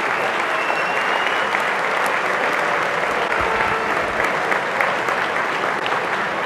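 Large dinner audience applauding steadily.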